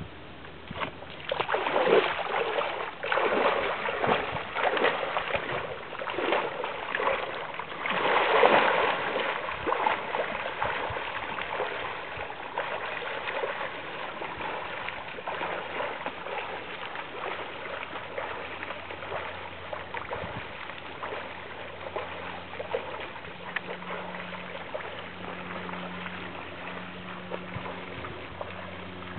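A swimmer wading into a pond and setting off: water splashing and sloshing, loudest in the first ten seconds. After that come fainter, steady splashes of swimming strokes as he moves away.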